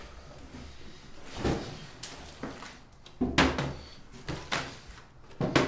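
Several sharp knocks and thuds on a tabletop as a plastic water bottle is knocked over, the loudest about three and a half seconds in.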